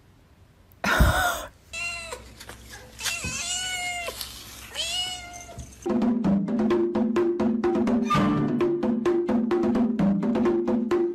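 A tabby cat meows four times: a loud cry about a second in, then three shorter arched meows. About six seconds in, music with a quick, steady beat takes over.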